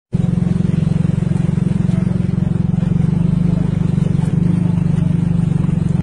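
Loud, steady motor vehicle engine running close by, with a fast, even throb.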